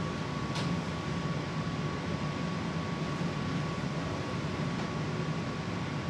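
Steady room hum and hiss, like ventilation or air-conditioning noise, with a faint steady whine above it. A single light click about half a second in.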